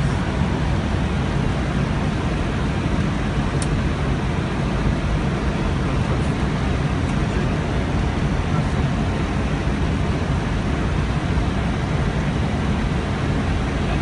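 Steady cockpit noise of an Airbus A320-231 in flight: an even rush of airflow and engine noise, heaviest at the low end, with one faint click about three and a half seconds in.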